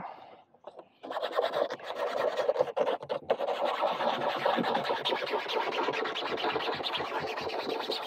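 Rapid back-and-forth scraping of a small patch-kit sandpaper across a surface, roughening it so an adhesive velcro strip will stick better. It starts about a second in and goes on as quick, dense rasping strokes.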